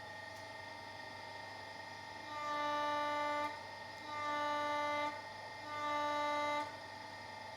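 Steering-rack test bench's hydraulic pump running with a steady whine; three times, for about a second each, it grows louder with a deeper tone added as the rack is turned and the pump builds pressure.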